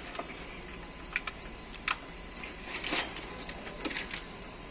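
A few light, scattered clicks and taps, about half a dozen spread unevenly over a few seconds, over a low background hum.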